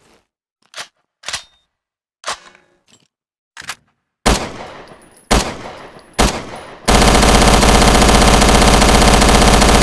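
Sound effect of a Thompson submachine gun: a few short, sharp clacks, then three single shots about a second apart. From about seven seconds in, continuous fully automatic fire.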